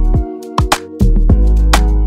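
Music with a beat: sharp drum hits over a deep bass line that drops out briefly and comes back about a second in.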